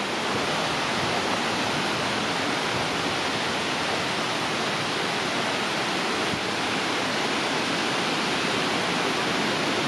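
Stream running high, a steady rush of water.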